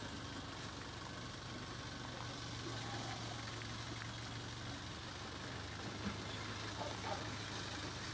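A Nissan Urvan Escapade van's engine idling steadily, with a constant low drone.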